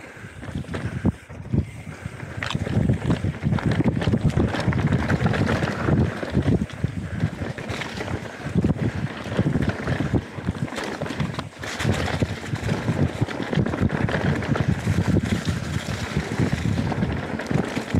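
Canyon Spectral 125 mountain bike descending a leaf-covered dirt trail at speed: wind buffeting the camera microphone, with tyres rolling over dirt and leaves and the bike clattering over bumps. The noise builds up sharply about a second in and stays loud.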